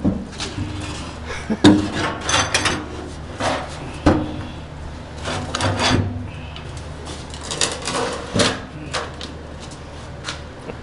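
Irregular knocks, rubs and scrapes of things being handled or moved about, over a low steady hum.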